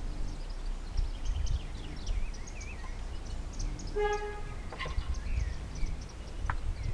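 Sleeping Neapolitan mastiff breathing with a soft, low snore, while birds chirp throughout. A brief whistle-like tone sounds about four seconds in.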